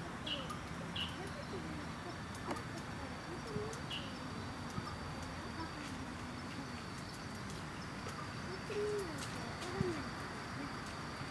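Woodland background with a steady high insect trill and a few faint, short bird chirps. Several low calls rise and fall in pitch, the loudest two near the end.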